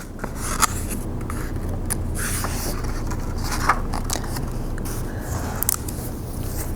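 A steady low hum with scattered short scrapes and clicks.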